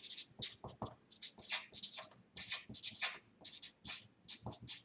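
Felt-tip marker scratching on paper as letters are written by hand, in short quick strokes at about four a second.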